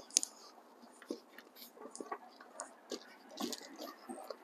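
Footsteps on loose gravel: a string of short crunches about two a second, the first one the loudest.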